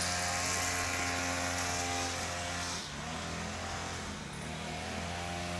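An engine running steadily, its pitch dipping about three seconds in and rising again near the end.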